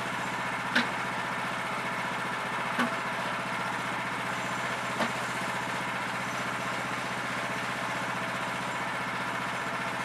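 Gas engine of a Woodland Mills portable bandsaw mill idling steadily, the blade not cutting, with three sharp knocks about one, three and five seconds in.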